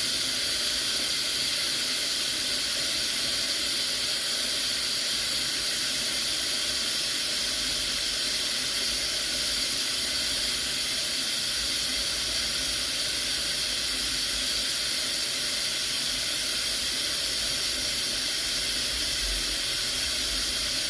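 Pressure cooker at pressure, steam hissing steadily from its valve.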